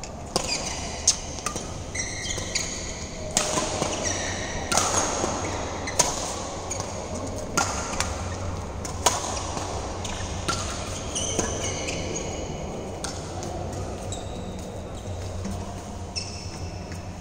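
Badminton rally: sharp, irregular hits of the shuttlecock off racket strings, about one every second or so, with shoes squeaking on the synthetic court mat in between.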